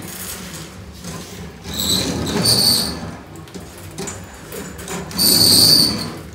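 Drain snake cable being run into a urinal drain, going in two bursts with a high squeal and a rough grinding underneath, about two seconds in and again about five seconds in.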